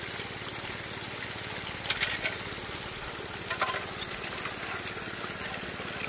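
Steady rush of pump-driven water gushing from a hose spray into a gold trommel, over a low steady hum, with a few light clicks.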